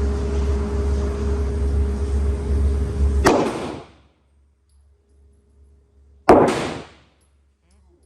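Glock 48 pistol firing 9mm rounds: two single shots about three seconds apart, the second the louder, with a short ringing tail. A steady hum runs until the first shot.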